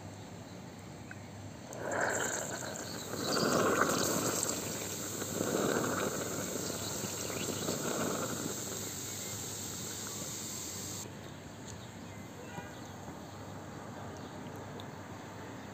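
Cleaning liquid forced by a large syringe through a combi boiler's clogged plate heat exchanger, gurgling and fizzing as it foams out of the ports, in about four surges over the first eight seconds, then a fainter hiss.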